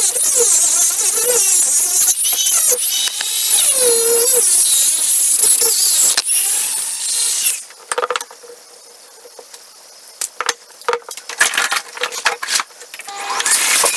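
A small handheld rotary tool whines at high speed, its pitch wavering under load, then winds down and stops about halfway through. Light clicks and taps follow, and near the end the tool starts up again with a steady whine.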